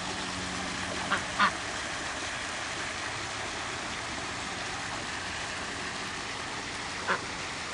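Ducks quacking a few times, twice about a second in and once more near the end, over a steady hiss.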